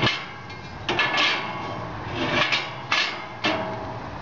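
Stainless steel drip tray of an Argentine V-grate grill being slid in and out, metal scraping and clanking against the grill frame in a series of short scrapes and knocks.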